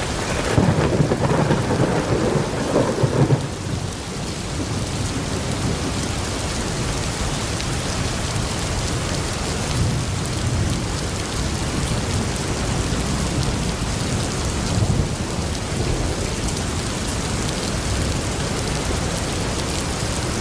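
Steady heavy rain falling on surfaces during a thunderstorm, with a roll of thunder rumbling in the first few seconds before dying away into the rain.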